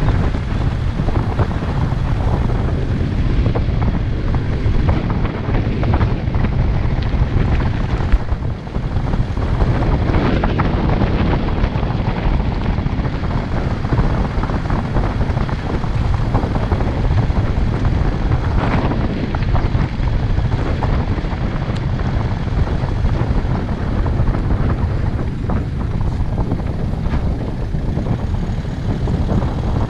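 A vehicle on the move, a steady low rumble of engine and road noise, with wind buffeting the microphone.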